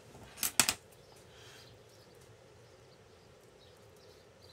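A quick cluster of three or four sharp clicks and taps about half a second in, from craft tools being handled and set down on a tabletop. After that there is only faint steady room noise.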